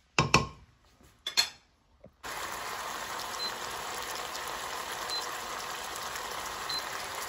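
A few sharp knocks in the first second and a half, then from about two seconds in a steady sizzle of prawns cooking in garlic, olive oil and white wine in a frying pan.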